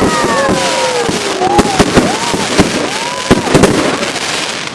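Fireworks going off in quick succession: a rapid string of sharp bangs over dense crackling, with several whistling fireworks gliding up and down in pitch. The barrage thins out near the end.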